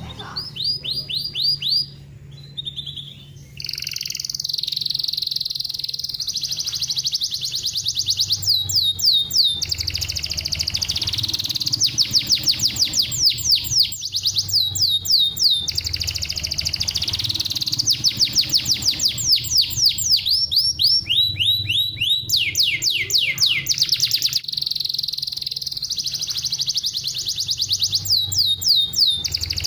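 Domestic canary singing a fast, tightly packed song. Runs of rapid downward-sweeping notes alternate with long rolling trills, one phrase after another, over a steady low background hum.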